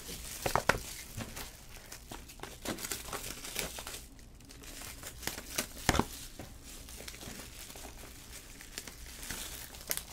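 Cellophane shrink-wrap crinkling and tearing as sealed trading-card boxes are unwrapped and handled, with scattered light clicks and one louder knock about six seconds in.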